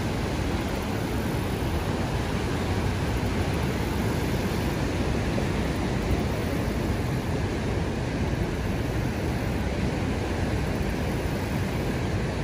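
Steady rushing roar of the Niagara River's white-water rapids just above the falls.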